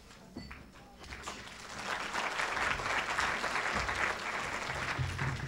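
Audience applauding, swelling about a second in and tapering off near the end.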